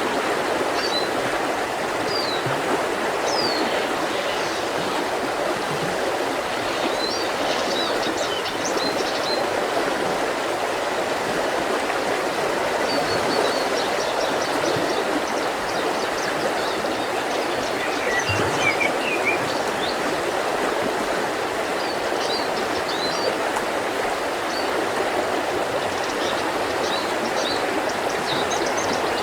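Mountain river rushing steadily, with small birds chirping and calling in short, high notes throughout.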